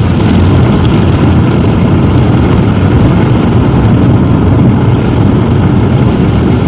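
Steady road noise of a car driving at highway speed on a wet road, heard from inside the cabin: a constant low rumble of engine and tyres with a hiss over it.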